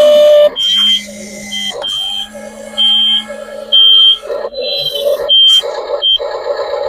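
Electronic beeps: short high steady tones at uneven intervals, over lower warbling tones and a low hum.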